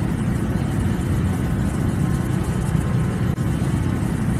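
Large open fire burning with a steady low rumble and dense crackle.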